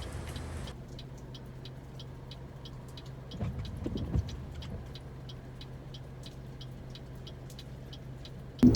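Car engine idling, heard from inside the cabin, with an even ticking about three times a second. Loud music cuts in right at the end.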